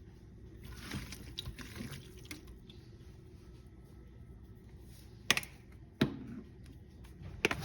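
Kitchen handling sounds while food is being prepared: a soft rustle about a second in, then sharp knocks and clicks about five seconds in, at six seconds and near the end.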